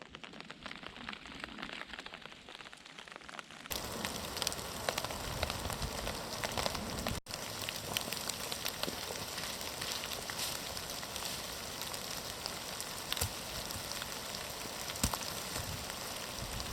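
Rain pattering steadily on a surface, a dense run of small drops over a hiss. It jumps louder abruptly about four seconds in, with a brief break about seven seconds in.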